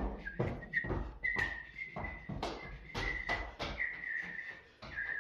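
A high steady whistle held on one note, wavering slightly in pitch, over quick rhythmic stomps of dancing feet on a tiled floor, about three to four a second.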